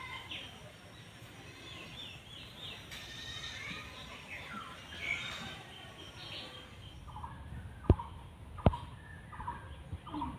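Birds chirping and calling, several short songs overlapping. About eight seconds in come two sharp clicks, less than a second apart and louder than the birds, followed by short repeated calls.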